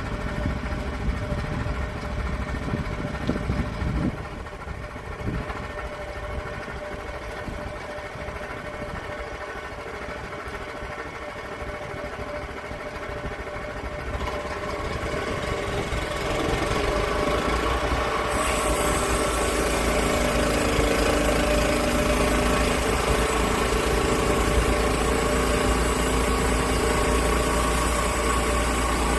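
Portable sawmill's petrol engine running steadily, growing louder and fuller about halfway through, with an added hiss from then on.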